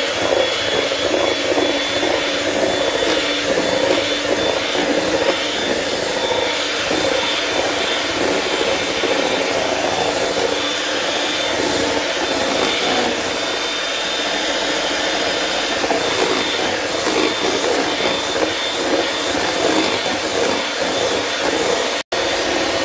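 Bomann electric hand mixer running steadily, its beaters whisking a runny batter of eggs and sugar in a bowl, with a steady high whine over the motor noise. The sound drops out for a moment near the end.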